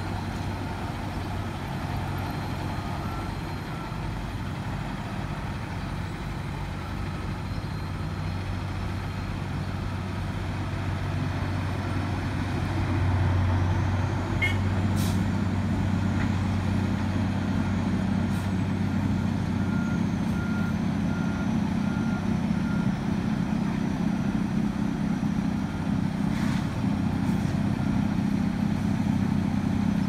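Heavy diesel road-construction machinery and trucks running steadily, louder from about halfway through. A reversing alarm beeps in a short run near the start and again about two-thirds of the way through.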